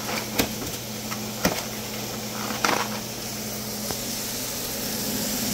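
A few sharp clicks from a clear plastic egg carton being handled and opened, over a steady mechanical hum with hiss.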